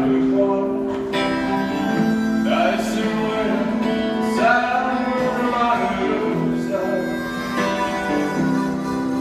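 Song played on guitar with a voice singing over it.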